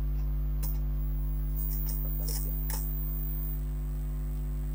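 Steady low electrical hum, with a few faint clicks and rustles of hands handling the printer's plastic lid and peeling its blue packing tape, mostly about two to three seconds in.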